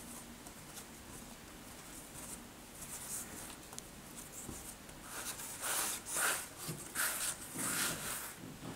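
Hands working soft black-sesame bread dough on a flour-dusted pastry mat: faint scratchy rustling of fingers and dough on the floury surface, then about five seconds in a run of louder rustling strokes.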